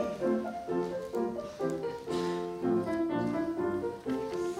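Piano playing a lively accompaniment of short, detached chords and notes.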